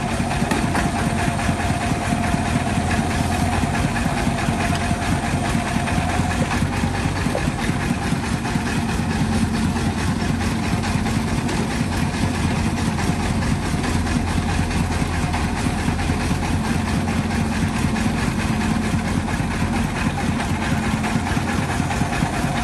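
Diesel engine of a Hyundai mini excavator running steadily while the machine digs and dumps soil, with no pauses.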